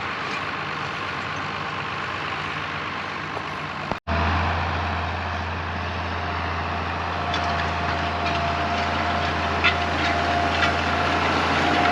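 Farm tractor engine running steadily. About four seconds in the sound cuts briefly, and a louder, deeper engine drone follows, with a faint steady whine coming in partway through.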